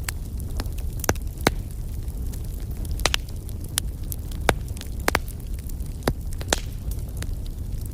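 Wood fire burning with a steady low rumble and sharp, irregular crackles and pops, about eight in all.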